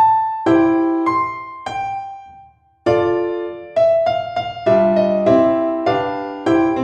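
Background music: a slow solo piano (or electric piano) melody, notes and chords struck and left to fade, with a brief pause about two and a half seconds in.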